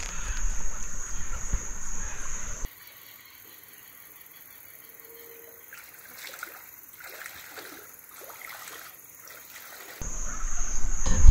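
Floodwater splashing and trickling. A louder rushing noise for the first couple of seconds drops off abruptly, leaving faint, irregular splashing until the level rises again near the end.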